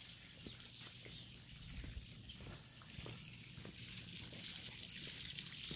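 Pond water bubbling and splashing where an aerator blows air up through the surface, a steady hiss growing louder toward the end.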